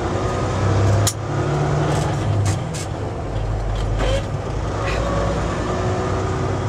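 Semi-truck's diesel engine running steadily under way, with road noise inside the cab. A few sharp clicks about a second in and again around two and a half to three seconds in.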